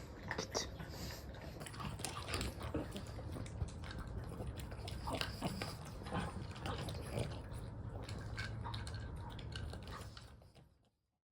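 Pug eating its meal: a quick, dense run of chewing and biting clicks, fading out near the end.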